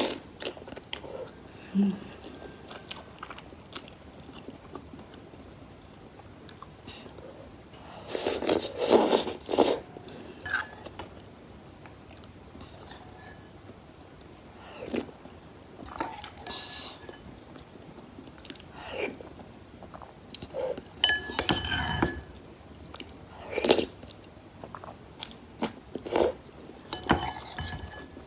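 Close-miked eating sounds of someone eating spicy instant noodles: chewing and biting in irregular bouts, with louder clusters twice and quiet gaps between.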